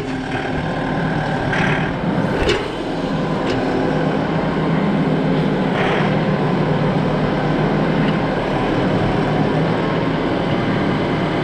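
Vehicle engine running steadily on the road, with a couple of brief knocks in the first few seconds.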